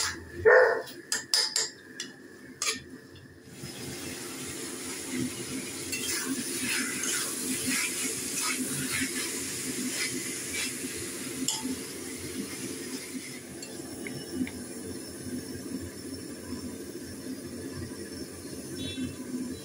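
Metal spatula clinking and scraping against a pan while chicken pieces with onion and tomato are stirred. Sharp clinks for the first few seconds, then a steady frying hiss with lighter scrapes, fading a little past the middle.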